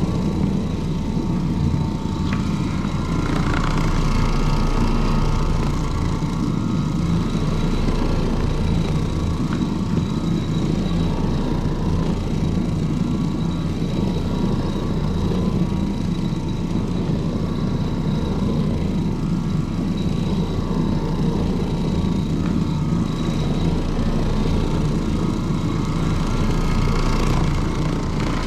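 Carpet-cleaning machine running steadily with a low, even rumble, as the carpet is worked.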